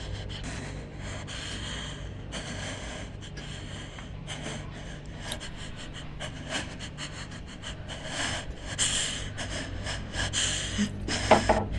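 A frightened woman breathing heavily, in a run of quick breaths in and out. Near the end she gives a short voiced gasp. A low steady hum runs underneath.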